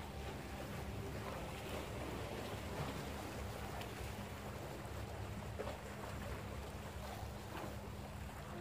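Small sea waves washing and splashing against concrete tetrapods of a breakwater, with wind rumbling on the microphone and a low steady hum underneath.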